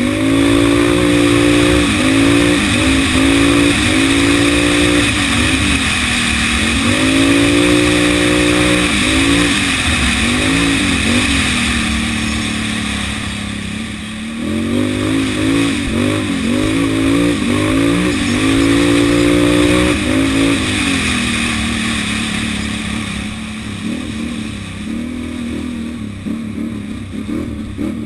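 Can-Am quad's engine heard onboard, revving up and dropping back again and again as the rider accelerates and lifts off over rough grass. A steady rushing noise runs underneath. The engine eases off around the middle and again near the end.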